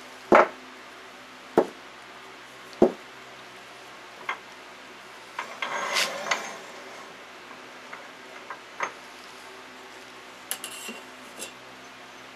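Metal clanks and knocks as the tool rest of a Record Power wood lathe is moved and set: three loud sharp knocks in the first three seconds, then lighter clicks and a short scrape about six seconds in.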